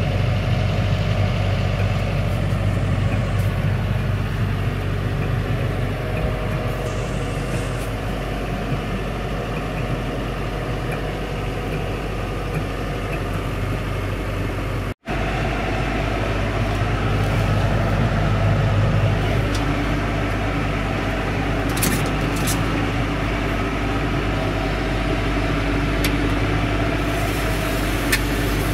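John Deere 6110M tractor's diesel engine running steadily, heard from inside the cab. The sound breaks off for an instant about halfway through.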